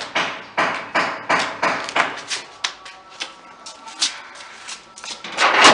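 Footsteps slapping down concrete stairs in flip-flops, a run of sharp echoing slaps about two or three a second that thins out after about three seconds, with a louder burst of noise near the end.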